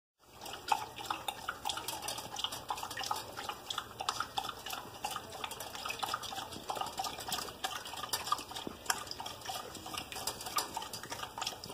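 Border Collie lapping water from a large stainless steel bowl: a rapid, irregular run of wet laps and small clicks against the metal.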